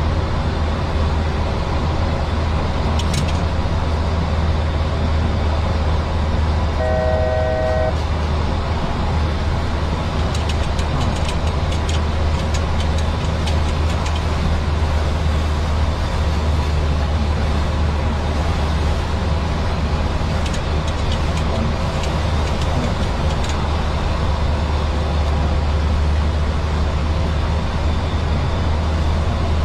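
Boeing 737 flight deck noise in climb: a steady, loud low drone of engines and airflow. A brief electronic chime sounds about seven seconds in, and light scattered ticking comes and goes in the middle.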